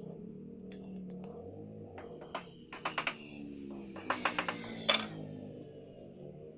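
Clusters of sharp taps and knocks, a few at a time about two seconds in and again about four to five seconds in, over quiet background music.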